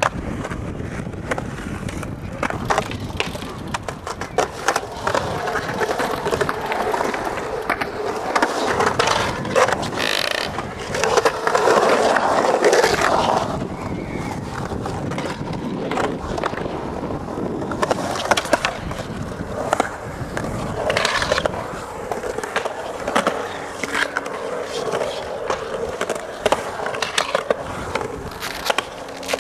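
Skateboard wheels rolling and carving on a smooth concrete bowl: a continuous rolling rumble with scattered sharp clacks. It grows louder for a couple of seconds near the middle.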